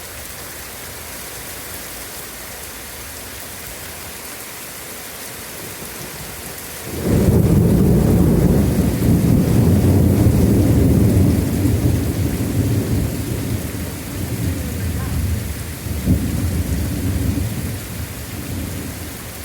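Steady rain hiss, then about seven seconds in thunder breaks in suddenly with a loud low rumble. The thunder rolls on for over ten seconds, surging again later and easing off near the end.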